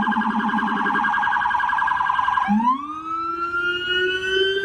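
NYPD police car's siren: a fast warbling yelp, which about two and a half seconds in switches to a slow wail that rises and then holds high.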